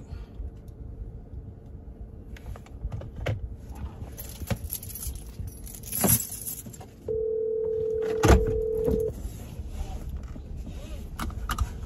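A phone being handled and tapped while a call is placed, then the ringback tone through the phone's speaker: one steady ring of about two seconds, starting about seven seconds in, with a sharp click during it.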